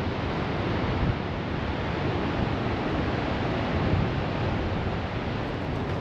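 Wind buffeting the microphone over the rush of ocean surf: a steady, noisy rumble with no distinct events.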